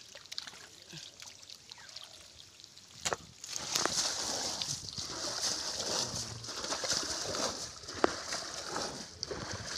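Shallow muddy water splashing and sloshing over a fishing net, starting suddenly about three seconds in after a quieter stretch, with a sharp tick near the end.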